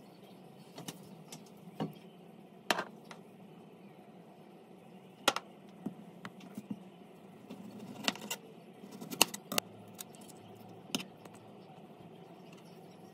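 Scattered sharp knocks and taps of fruit and a kitchen knife against a plastic cutting board as a tomato is handled and cut, over a steady low hum.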